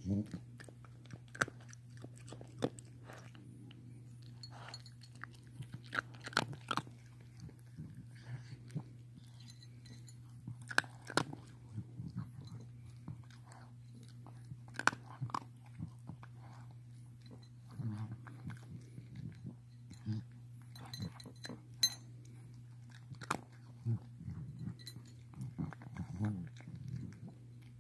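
A pet's strange, irregular breathing: short clicky, crackly sounds at uneven intervals, over a steady low hum.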